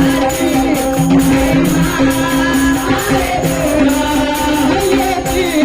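Bhajan music: a dholki drum beating a steady rhythm over a held drone note, with a voice singing.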